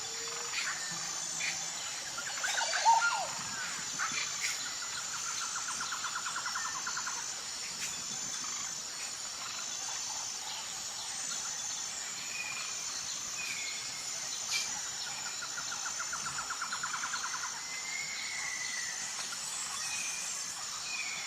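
Forest ambience: a steady, high, pulsing insect chorus with birds calling over it. The birds give short chirps and descending whistles, a louder call about three seconds in, and a rapid trill twice.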